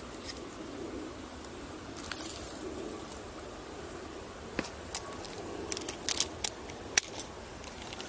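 A spinning fishing reel and rod being handled, giving a run of sharp clicks and ticks in the second half, over a steady outdoor background.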